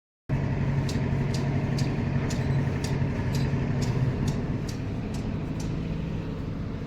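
Four-cylinder car engine idling with a steady hum and sharp ticks about twice a second. A scan tool reads misfires on all four cylinders of this engine.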